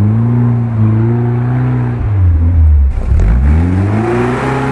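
Off-road 4x4's engine revving under load as it climbs a slope: the revs hold, fall away about two seconds in, then rise again and hold.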